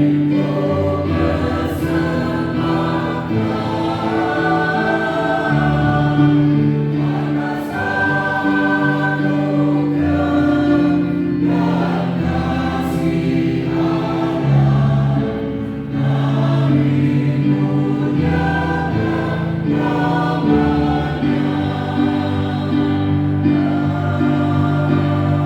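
Church choir singing in parts with piano accompaniment, holding long chords.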